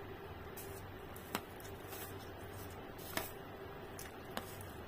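Metal spoon clinking against the plate three times as food is scooped, over faint chewing and a steady low hum.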